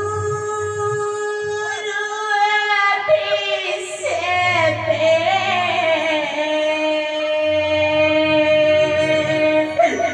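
A solo voice singing a slow, drawn-out lament in Odia, holding long notes with slow slides and wavering ornaments, over a steady low instrumental accompaniment.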